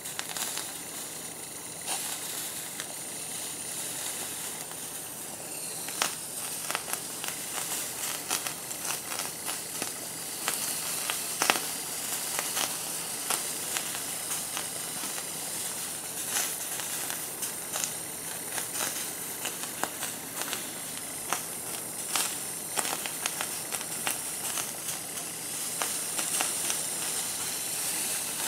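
Liquid propellant from a can of compressed air hissing and sizzling on a puddle of water, with frequent sharp crackles as the water freezes into ice.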